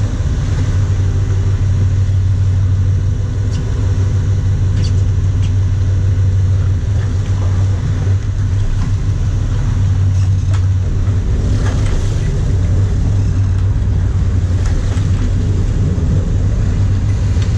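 Sportfishing boat's engines running with a steady low hum, with a few light knocks from gear in the cockpit.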